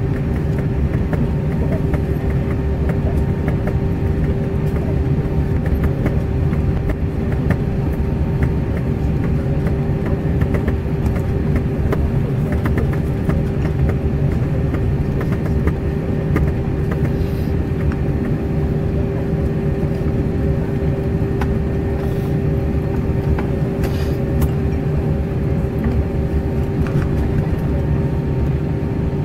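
Cabin noise of an Airbus A320 taxiing after landing: a steady rumble of the idling engines and the rolling airframe, with a steady hum throughout and a few faint clicks.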